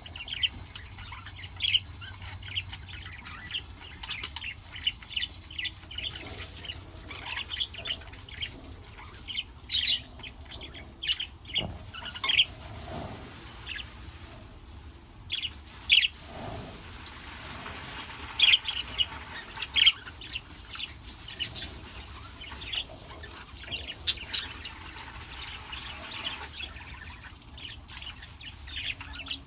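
Small pet parrots, budgerigars and lovebirds, chirping and chattering in many short, sharp high calls, some of them loud. A soft rushing hiss sits under them through much of the middle.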